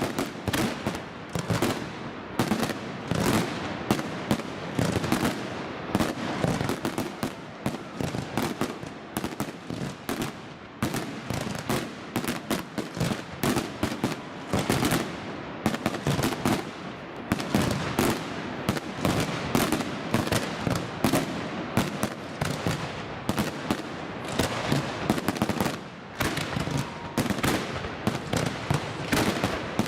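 Fireworks display: a dense, continuous barrage of bangs and crackling shell bursts, several a second.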